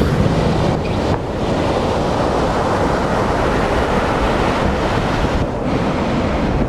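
Ocean surf breaking and washing up a sandy beach, with wind blowing across the microphone, a steady loud rush.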